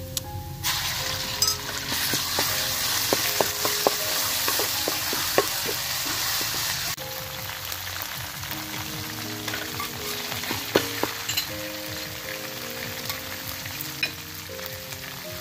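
Garlic and red chili paste frying in oil in a steel wok, sizzling hard from about a second in, with a metal spatula scraping and clicking against the pan. About halfway the sizzle drops suddenly and carries on softer.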